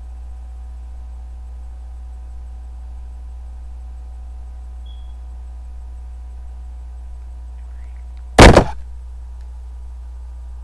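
Steady low electrical hum, broken once about eight seconds in by a single loud, short knock as a handheld smartphone is moved close to the microphone.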